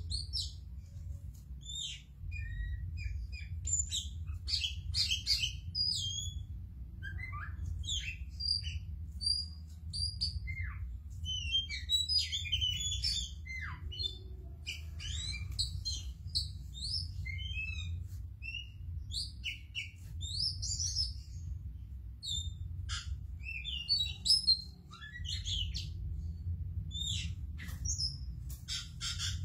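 Oriental magpie-robin (kacer) singing vigorously: a long, varied song of clear whistles, sliding notes and quick chattering phrases with hardly a pause.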